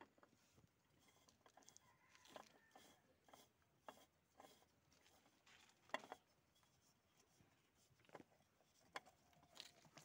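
Near silence with scattered faint clicks and rubbing as a spin-on oil filter is handled and screwed onto the tractor engine by hand; one sharper click about six seconds in.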